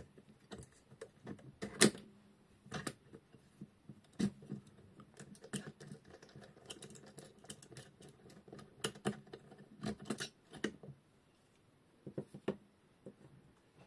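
Metal parts of a knife-sharpening jig's clamp frame clicking and knocking as they are handled, unscrewed and set down: irregular clicks, the sharpest about two seconds in, with a few more around four and ten seconds.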